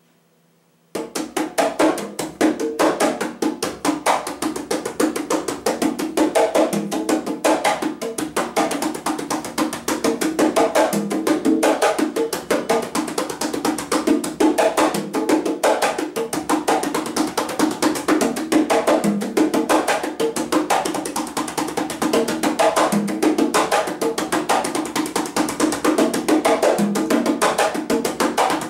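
A conga played by hand in a steady, dense run of strokes: heel-toe palm and fingertip strokes, muted and open slaps and open tones, cycling through a four-part independence exercise played through in full. The playing starts about a second in.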